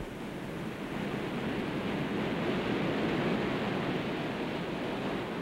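Ocean waves rushing and breaking, a steady surf noise that swells toward the middle and eases slightly near the end.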